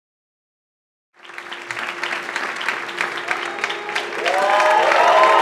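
Audience applause that starts suddenly about a second in, with a steady held note underneath and gliding pitched sounds over it near the end.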